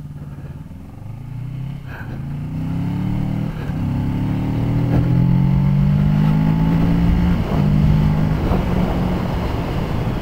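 Motorcycle engine pulling away from a standstill and accelerating, its revs climbing and dropping back at each upshift a few times as the bike gathers speed.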